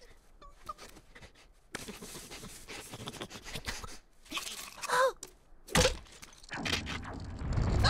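Cartoon sound effects of a squirrel scrabbling on ice: scratchy scraping noise, a short squeaky vocal cry about five seconds in, then a sharp thud just before six seconds, followed by a rising rush of noise.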